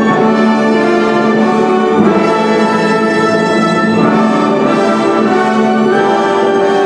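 Orchestra playing slow classical ballet music, with brass prominent in held chords that change about every two seconds.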